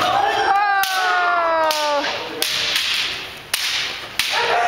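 Bamboo shinai strikes cracking sharply several times. Near the start there is a long drawn-out kendo shout (kiai) that falls steadily in pitch over about a second and a half and then breaks off.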